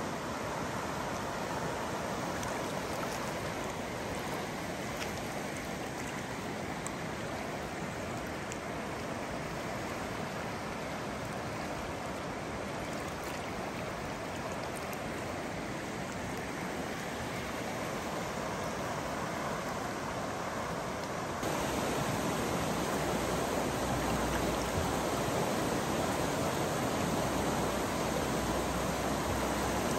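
The South Santiam River rushing over its rocky bed in shallow riffles, a steady wash of moving water. About two-thirds of the way through, the rush steps up louder and fuller.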